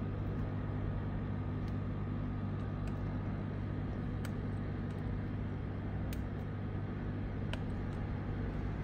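A steady low hum with several fixed pitches, machine-like and unchanging, with a few faint, sharp clicks scattered through it.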